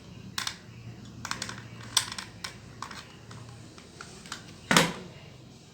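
Irregular small clicks and taps of hard objects being handled on a work surface during bench work on a cable repair, with a louder knock a little before the end.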